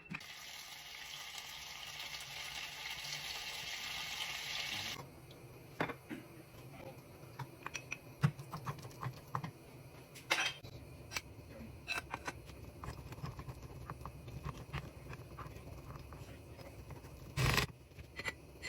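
Kitchen sounds of breakfast being cooked: a steady hiss for about five seconds that cuts off abruptly, then scattered light clicks and knocks of utensils and cookware, with one louder knock near the end.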